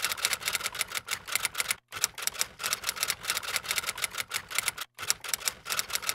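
Typewriter sound effect: rapid key clacks, several a second, keeping time with on-screen text being typed out, with a short pause about two seconds in and another about five seconds in.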